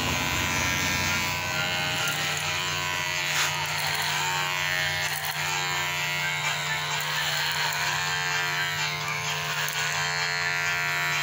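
Electric hair clipper running with a steady buzz while cutting hair held up on a comb.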